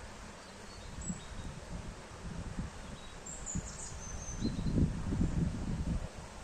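Forest ambience: wind buffeting the microphone in low, gusty rumbles, strongest a little past the middle, with a few short high bird chirps.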